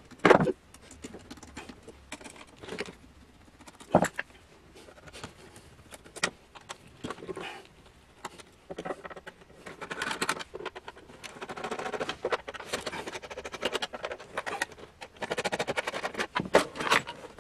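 Screwdriver working screws out of the plastic base of an Olympia adding machine, with scraping, rapid scratchy clicking and knocks as the case is handled. A sharp knock comes just after the start and another about four seconds in; the busiest clicking and scraping comes in the second half.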